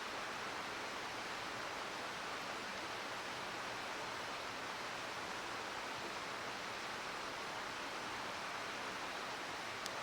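Steady flowing water of a gorge river, an even rushing noise, with a single sharp crackle from a wood campfire just before the end.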